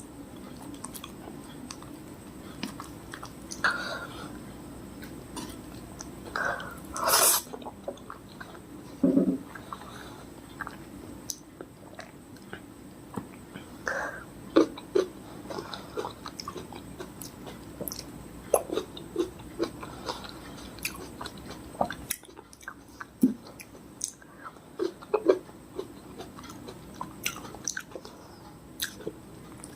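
Close-miked chewing and biting of fresh fruit: wet mouth clicks and smacks come irregularly, the loudest about seven seconds in.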